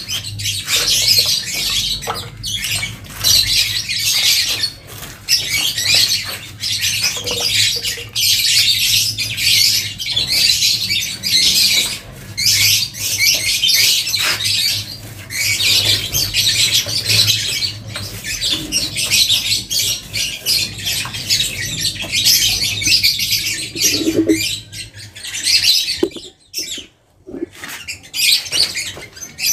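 A brush scrubbing wet cement-based waterproofing coating onto a rough concrete slab: a scratchy rasp in repeated strokes about a second apart. It stops briefly near the end.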